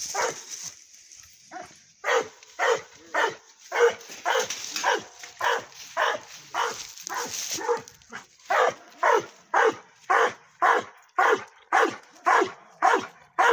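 A hog-hunting bay dog, a tricolour hound, bays at penned hogs in loud, short barks coming about twice a second after a brief pause near the start.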